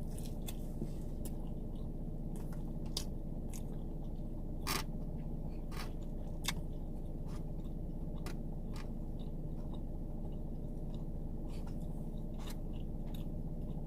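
Close-up chewing and biting of pizza: small wet clicks and crunches over a steady low hum.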